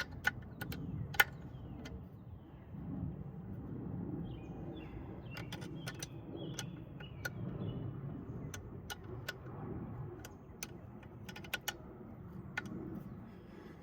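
Ratchet wrench clicking in short, irregular runs as bolts are tightened down on a 1999 Toyota 4Runner's intake, with scattered sharp taps of metal tools.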